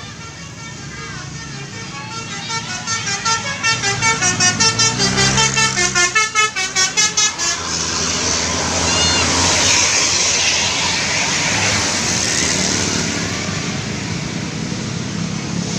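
Tour bus telolet horn playing a fast, pulsing multi-note melody for several seconds, then the bus going by, its engine and road noise swelling and easing off.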